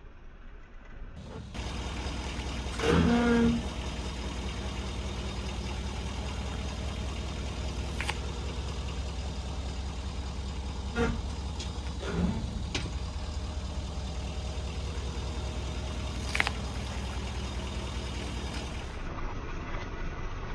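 Ford F-350 Super Duty pickup's engine running steadily under a tire crush. A short, loud squeak about three seconds in and a handful of sharp cracks and snaps scattered through are objects giving way under the tire.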